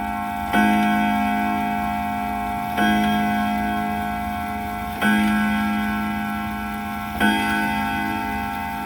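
Emperor grandfather clock striking the hour: four slow, evenly spaced low strikes, each ringing on and dying away into the next, part of its count to twelve.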